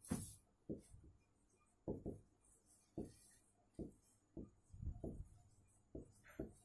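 Marker writing on a whiteboard: a series of short, dull taps and knocks at irregular intervals as the letters are drawn.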